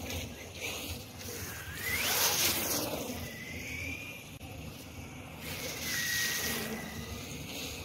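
Brushless electric motor of an HSP 94701 Wolverine 1/10 RC monster truck whining as the truck speeds up and slows, with its tyres spraying through standing water in bursts of hiss. The whine rises and falls steeply about two seconds in, then holds steady twice.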